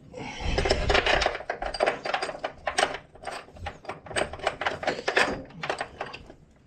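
Metal hose clamp clinking and scraping as it is fitted and worked around the neutralizer's fitting: a quick run of small metallic clicks and rattles that dies away near the end.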